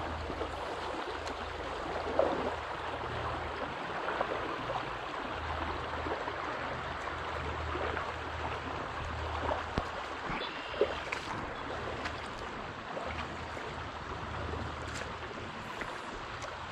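Steady rush of a small trout stream's running water, with a low rumble that comes and goes.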